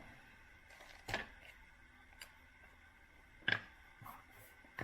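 A few short taps and clicks from handling trading cards and their cardboard box, over quiet room tone. The clearest come about a second in and again past the middle.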